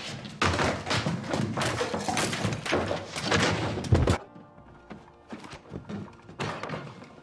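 Loud music with heavy thuds for about four seconds, cutting off abruptly, then quieter music.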